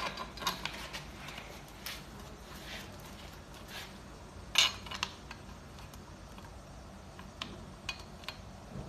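Scattered light metal clicks and clinks as machine screws are fitted by hand into the steel leg brackets of an office chair, with one louder clink about four and a half seconds in.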